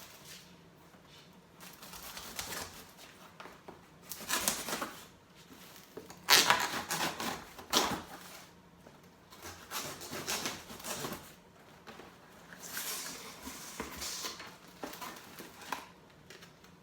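Cardboard shipping box being opened, with irregular bursts of tearing and rustling from tape, cardboard flaps and packing material. The loudest burst comes about six seconds in.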